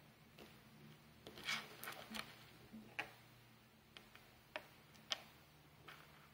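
Faint, irregular light clicks and taps, about ten over several seconds, from a small pietersite stone pendant being handled, over a steady low hum.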